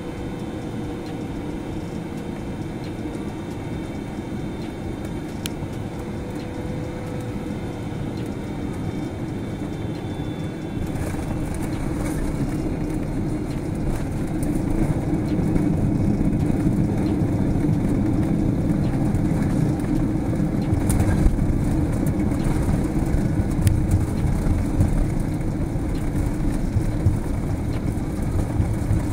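Cabin noise of a Boeing 777-300ER with GE90 engines on final approach and landing: a steady rush of engine and airflow noise that grows louder and deeper about halfway through as the jet touches down and rolls out on the runway, with one sharp knock later in the rollout.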